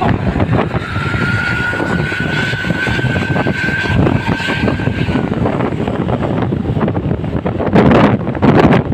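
A passing road vehicle, most likely a bus, running loud and steady. From about a second in, a thin high whine holds for roughly four seconds, rising slightly, and two loud surges of noise come near the end.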